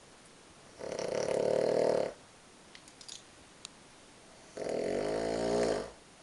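A sleeping person snoring: two long snores about four seconds apart, the second wavering in pitch.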